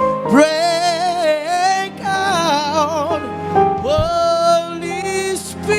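Gospel worship music: sung phrases with wide vibrato held on long notes over sustained chords.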